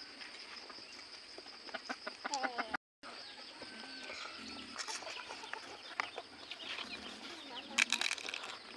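Chickens clucking in the background, with scattered sharp clicks. The sound cuts out completely for a moment just before three seconds in.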